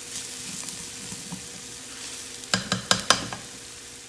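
Diced onion sizzling in hot oil in a non-stick skillet, stirred with a silicone spatula as it softens to translucent. About two and a half seconds in comes a quick run of four or five sharp knocks.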